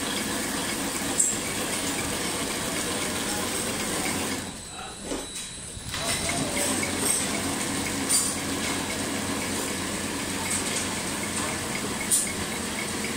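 Biscuit flow-wrap packing machine and its infeed conveyor running: a steady mechanical clatter with a few sharp clicks, briefly quieter a little before halfway.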